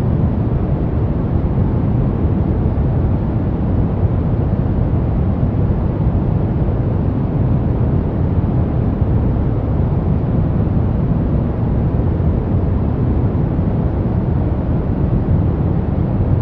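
Brown noise: a steady, deep rumbling hiss, strongest in the low end and with little treble, unchanging throughout.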